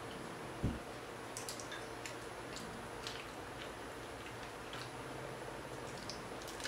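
Faint scattered clicks and soft squishy sounds of loaded nachos being picked up by hand and with a fork, then bitten and chewed, with one soft thump under a second in.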